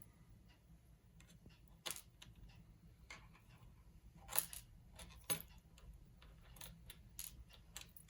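Small metal clicks and light clinks as the tiny wafers, pins and springs of an ABUS 72/40 padlock's cylinder are handled and taken out. There are a few sharp separate clicks, the loudest about four and a half seconds in, with fainter ticks between.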